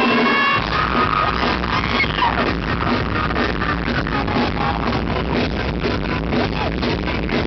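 Live rock band playing loud and fast. A held high note cuts off about half a second in as the full band comes in with dense, rapid drumming under the guitars.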